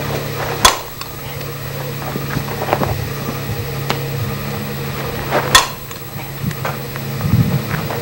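Softball bat hitting pitched balls: two sharp cracks about five seconds apart, over a steady low hum.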